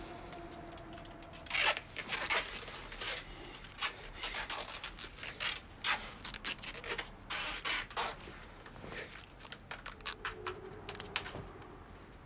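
Irregular rustling and scraping handling sounds in quick short bursts, loudest about two seconds in and thinning out near the end.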